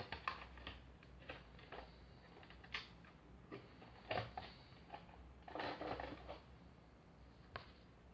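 Plastic figure parts and packaging being handled: scattered light clicks and taps, with a longer rustle about five and a half seconds in.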